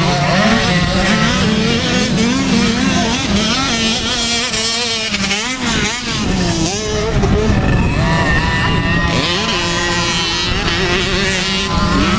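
Several motocross dirt bike engines racing at once, overlapping, each rising and falling in pitch as the riders rev up, shift and back off through the jumps and turns.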